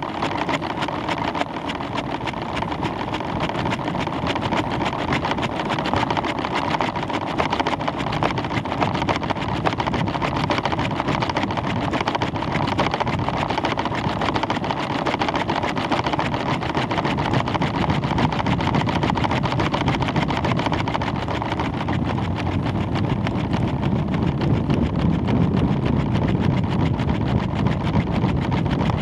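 Steady rushing noise of air moving over the microphone of a camera on a weather balloon payload in flight, a little louder near the end.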